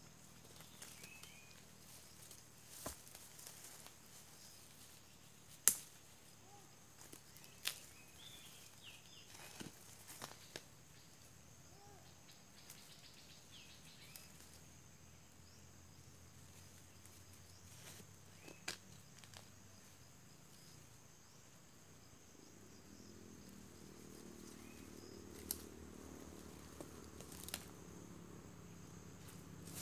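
Quiet forest-floor ambience with scattered sharp snaps and crackles of dry leaves and twigs as someone moves through the undergrowth.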